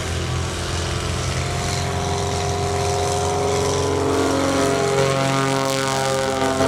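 Light propeller plane's piston engine at full power on a short takeoff run, a steady propeller drone whose pitch drops a little about four seconds in.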